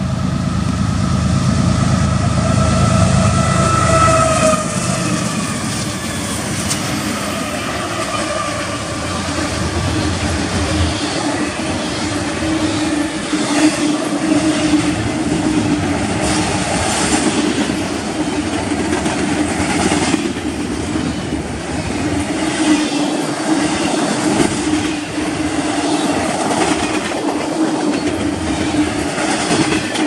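A four-unit lashup of diesel-electric freight locomotives (GE ES44AC leading, with EMD SD70M, EMD SD70ACe and a second ES44AC) passing at speed: a heavy engine rumble that drops away about four and a half seconds in, with a tone that falls in pitch as they go by. Then double-stack intermodal well cars rolling past, wheels clattering over rail joints with a steady ringing rail noise.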